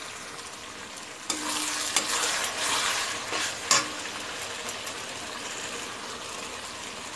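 A steel spatula stirring and scraping drumstick leaves and boiled mung dal in a kadai, with a few clicks against the pan, over a steady sizzle from the hot pan. The stirring stops about four seconds in and only the sizzle goes on.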